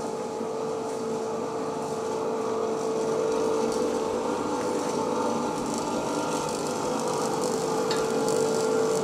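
Steady hum of an electric motor running in a blacksmith's workshop: one constant mid-pitched tone over an even rushing noise, with no hammer blows.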